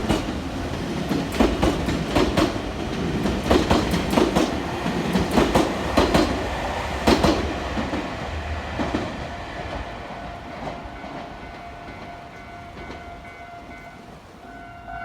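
A train passing over a level crossing, its wheels clacking in pairs over the rail joints, then fading away after about eight seconds.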